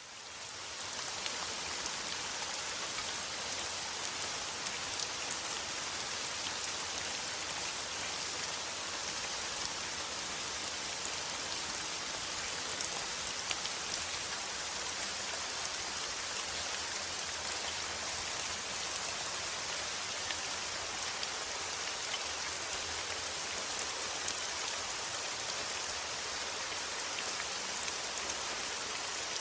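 Steady rain: a dense, even hiss of falling drops with fine individual drop ticks, fading in over the first second or so.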